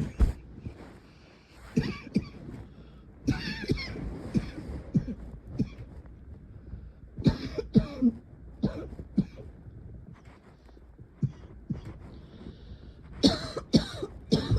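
A person coughing in repeated fits: several bouts of short, harsh coughs separated by pauses, with the strongest bout near the end.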